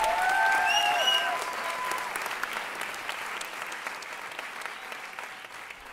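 Audience applauding, with a few high held cheering shouts in the first second or so; the clapping slowly fades out.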